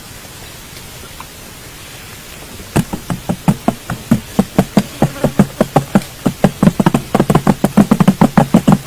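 Faint steady background, then from about three seconds in a rapid, quickening run of short knocks, several a second.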